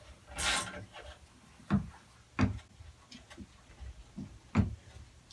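A few separate light knocks and clunks, as of parts or tools being handled, after a brief hiss near the start.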